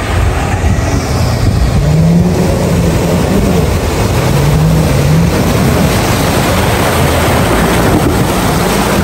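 Off-road 4x4 pickup driving through a shallow river crossing: water splashing and churning around the wheels over the engine, which revs up twice, and the truck passes close by near the end.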